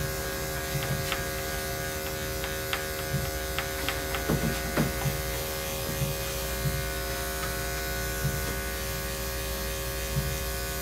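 Electric dog grooming clippers running with a steady buzz while trimming the dog's underside, with a few light clicks.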